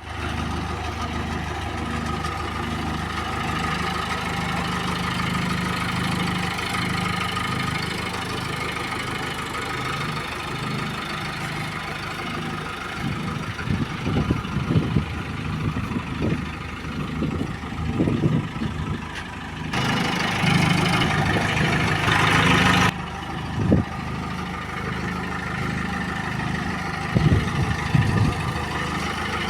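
JCB 3DX backhoe loader's diesel engine idling steadily. Scattered clunks come through in the middle and again near the end, and a louder rushing noise cuts in for about three seconds about two-thirds of the way through, then stops suddenly.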